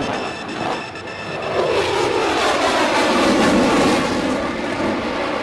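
Jet noise from an F-22 Raptor's twin Pratt & Whitney F119 turbofans as the fighter flies a demonstration pass, a loud roar whose pitch falls as it sweeps by, loudest about three to four seconds in.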